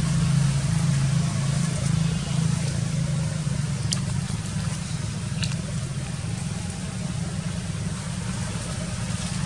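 Steady low hum of an engine running at idle, with two brief high ticks about four and five and a half seconds in.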